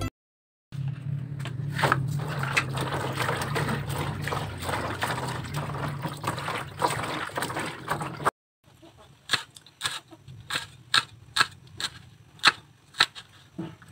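Water sloshing as hands rub and wash pieces of dried fish in a plastic basin in a steel sink. After a cut, a broad kitchen knife chops red chillies on a wooden board: a quick run of sharp knocks, roughly three a second.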